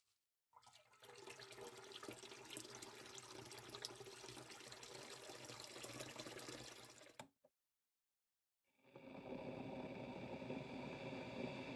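Running, splashing water with fine crackling, cutting off abruptly after about seven seconds. After a short silence, a different steady hum with a few held tones begins near the end.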